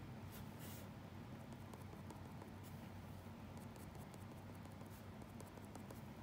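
Faint scratching of a drawing tool on paper in short strokes, a couple near the start and a cluster in the second half, over a low steady hum.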